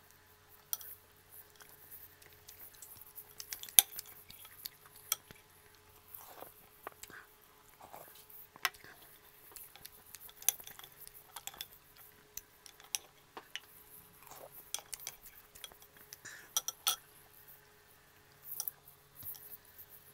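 Irregular clicks and clinks of mussel shells and a metal spoon against a ceramic bowl as the mussels are pried open and picked out, the sharpest click about four seconds in. Soft, wet eating sounds come in between.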